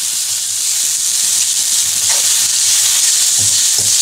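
Chopped mint and greens sizzling as they fry in a pan, stirred with a steel ladle that scrapes against the pan a few times.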